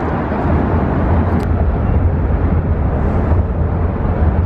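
Steady low rumbling outdoor noise.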